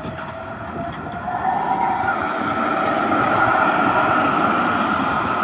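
NGT8D low-floor articulated tram passing close, its rolling noise on the rails swelling to a peak about three to four seconds in. Over it runs the whine of its three-phase traction drive, rising in pitch during the first two seconds and then holding steady.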